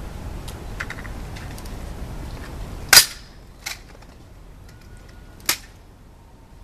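M14 rifle handled crisply during a guard's rifle inspection: one very loud, sharp clack about three seconds in, then two smaller clacks.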